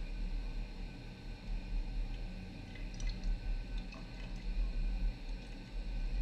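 Bathroom sink faucet running into the basin, with a few drips and splashes about three to four seconds in as hands rinse water over the face, over a low steady hum.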